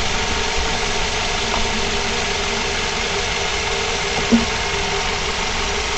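Mazda5 running at low speed: steady engine and road noise, with one short, sharp sound about four seconds in.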